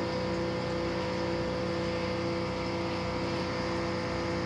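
A steady machine hum holding several fixed tones over a low noise, unchanging throughout.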